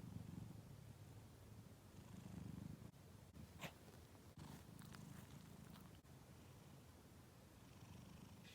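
Domestic cat purring softly, a low rumble that swells and fades with its breathing. A brief faint click sounds a little past the middle.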